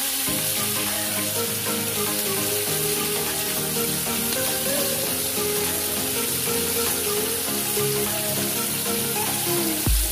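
Small flour-coated tawilis fish frying in oil in a pan, with a steady sizzle.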